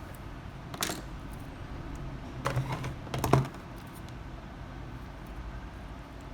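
A few light clicks and taps of small hard objects being handled, loudest in a short cluster in the middle, over a steady low hum.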